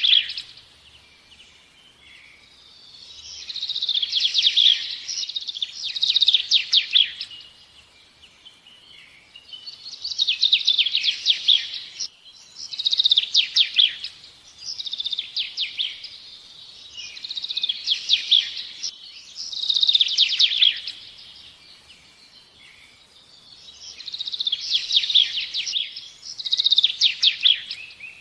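A songbird singing: phrases of quick trilled notes, each a second or two long, repeated about every two seconds with short pauses between and a longer gap past the middle.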